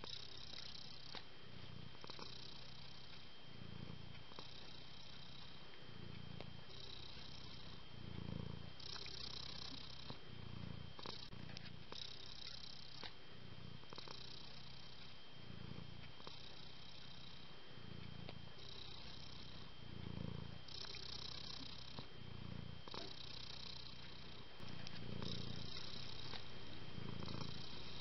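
Domestic cat purring steadily and close up, in a slow breathing rhythm of about one in-and-out every second and a half.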